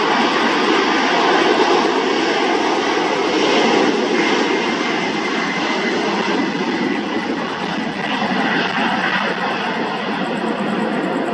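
Boeing 767's twin jet engines running as the freighter rolls along the runway: a loud, steady rushing jet noise with a faint whine running through it.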